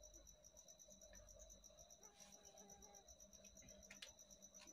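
Near silence, with a faint, steady high-pitched insect trill pulsing about ten times a second over a low hum.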